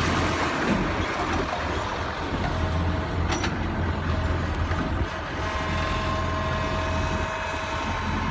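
Small electric motor of a toy excavator running steadily with a low hum, a click about three seconds in, and a thin whine joining about halfway through.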